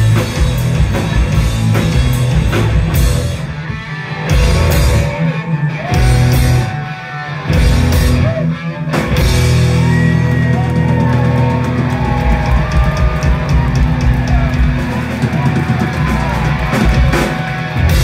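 Live rock band playing loud: distorted electric guitars, bass and drum kit. The first half is broken by several short stop-start hits; from about halfway there is a long held stretch of ringing guitar with bending notes, before a last run of drum hits near the end.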